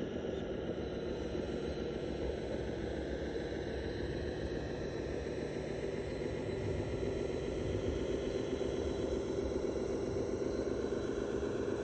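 Steady whine of a radio-controlled construction model's electric motor and gears running, a little louder in the second half.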